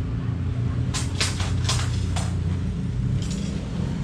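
Polyester tent fabric and its plastic wrapping rustling and crinkling as the tent is unfolded. There are several quick rustles between about one and two seconds in and another near the end, over a steady low rumble.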